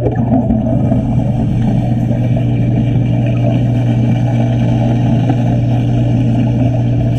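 Underwater wet stick welding: the electrode's arc, struck right at the start, crackles and buzzes steadily as it burns, heard through the water over a constant low hum.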